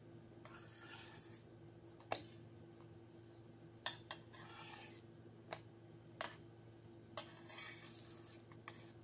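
Metal slotted spatula tapping and scraping against a dry frying pan as piyaya flatbreads are turned: several sharp clicks and a few short scrapes, over a low steady hum.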